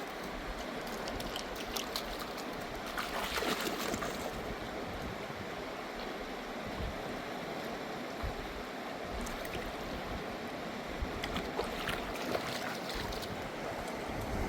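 Fast-flowing river rushing steadily, with a few light clicks or splashes over it.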